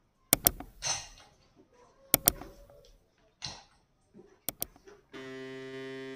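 Sound effects of an on-screen Facebook follow-and-like animation: three pairs of crisp mouse clicks, then a steady buzzing tone lasting about a second near the end that cuts off sharply.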